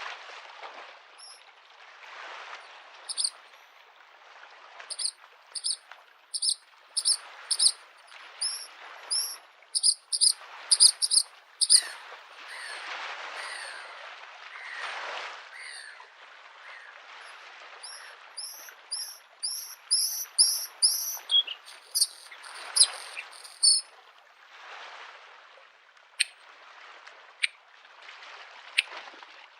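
Bluethroat singing in two long runs of short, quickly repeated high notes, over small lake waves washing against the shore in swells every couple of seconds.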